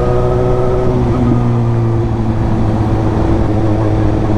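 Suzuki GSX-S750's inline-four engine and exhaust running at a steady cruise while the bike is ridden, the note easing slightly down in pitch about a second in.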